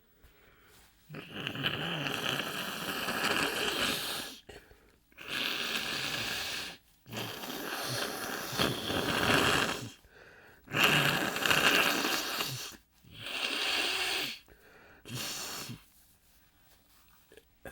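A person's loud, noisy breaths through the nose and mouth: six long blows of air in a row, each lasting one to three seconds, with short pauses between.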